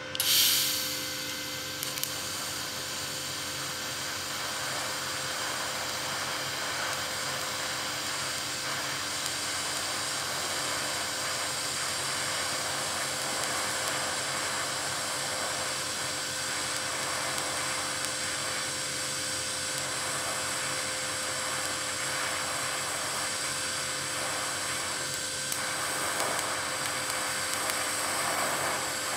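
TIG welding arc from a Vevor 210A inverter TIG welder running a bead on stainless steel at a colder setting. It opens with a brief louder burst as the arc strikes, then settles into a steady hiss with a faint steady hum under it.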